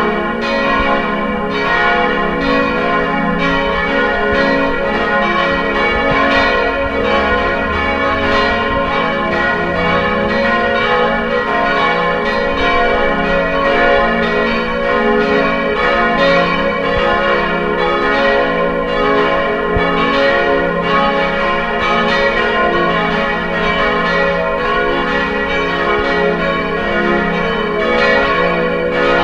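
Church bells ringing continuously, several bells striking over and over so that their ringing tones overlap without a break.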